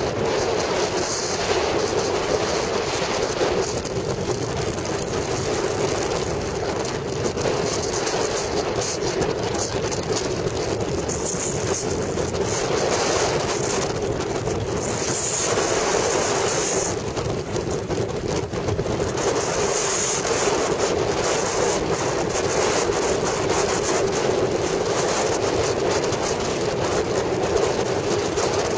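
Motorcycle riding at a steady cruising speed on a highway: a constant engine drone under an even rush of wind and road noise.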